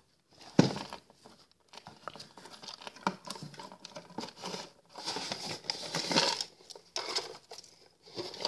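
Cardboard box insert and wire twist ties rustling and crinkling as the ties are untwisted and pulled through the cardboard, with a sharp knock about half a second in.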